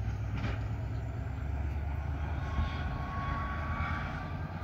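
Freight train pulling away: a steady low rumble as the last hopper wagon rolls off along the track, with a faint thin whine in the second half.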